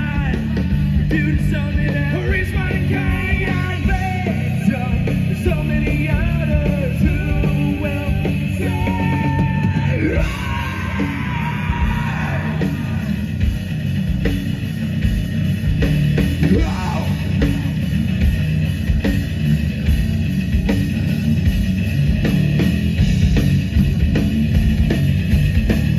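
Live heavy rock band playing: distorted electric guitar, bass guitar and drum kit, loud and dense throughout, with a singer's voice over roughly the first half.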